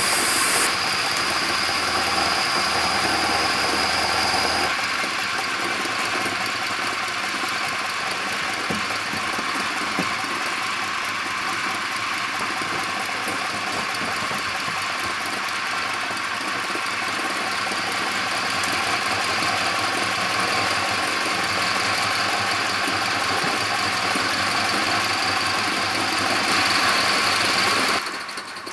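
Steam hissing steadily from an Aster BR 52 live-steam model locomotive. A thin whistling tone from its safety valves blowing off rides on the hiss for the first few seconds and returns near the end.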